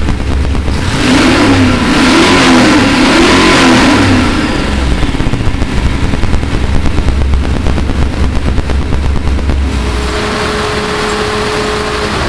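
Chrysler 408 stroker small-block V8, built from a 360, running on an engine test stand through stock exhaust manifolds with no pipes. About a second in it is revved up and down for a few seconds, then settles back to idle, and it rises lightly again near the end.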